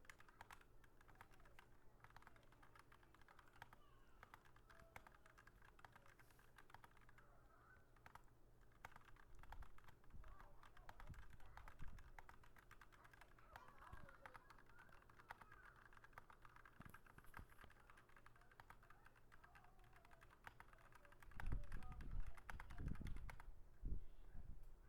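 Faint, rapid typing on a Razeak RK-X44 mechanical keyboard with Cherry MX Red linear switches: a steady stream of key clacks. Near the end come several louder low thumps.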